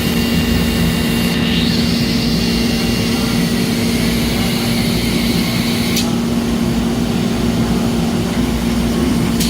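Traub TNL 26 CNC Swiss-type lathe running through a machining cycle: a loud, steady machine hum. Over it runs a high whine that shifts in pitch about one and a half seconds in and stops sharply with a click about six seconds in.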